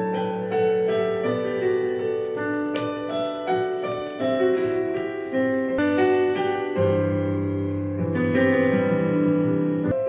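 Background piano music: a melody of held notes that change about every half second, with a lower bass part joining about seven seconds in.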